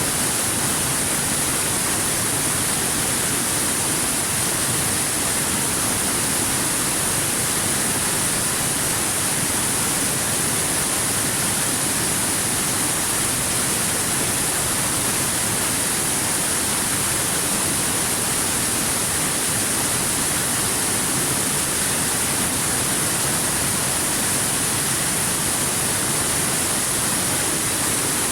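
Stream water running over rocks, a steady, unbroken rush with a bright hiss on top.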